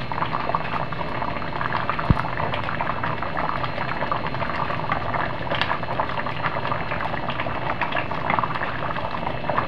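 Pot of kare-kare stew boiling on a gas stove, a steady bubbling with many small pops, as a ladle scoops from it. A single sharp knock about two seconds in.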